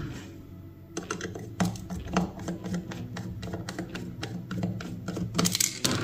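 An old hair dryer running: a steady low motor hum with dense, irregular rattling clicks that starts about a second in.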